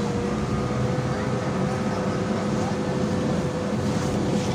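Interior of a BKM 32102 trolleybus under way: steady running and road noise with a constant electric whine from the drive.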